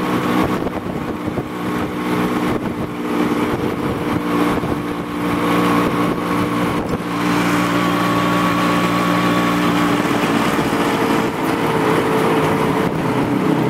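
Engine of a moving road vehicle running at a steady speed, heard from inside the cabin: a steady, even hum over road and wind noise. The hum's pitch wavers slightly near the end.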